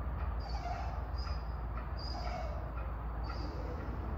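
A bird calling over and over, short high slightly falling notes about once a second, over a steady low rumble.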